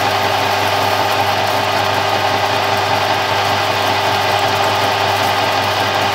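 Harrison M300 metal lathe running under load, a 20 mm shank Glanze indexable turning tool taking a 7 mm deep cut in 6061 aluminium bar: a steady machine hum with cutting noise. The chips come off in long unbroken curls rather than breaking.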